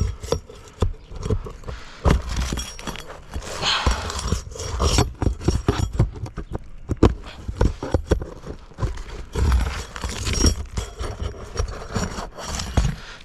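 Irregular knocking and scraping of a roofing pry bar worked under asphalt shingles to pull out nails, with a longer scrape about four seconds in.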